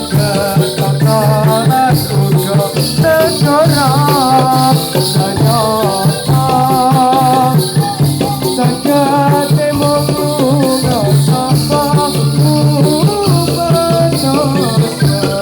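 Loud Topeng Ireng dance music: a wavering sung melody over a constant shimmering rattle of jingling ankle bells, with a steady low hum beneath.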